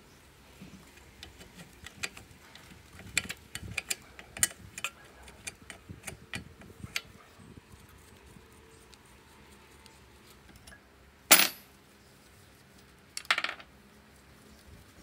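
Small metal engine parts and hand tools clinking and tapping, a quick scatter of light knocks, then two short, loud bursts of noise later on.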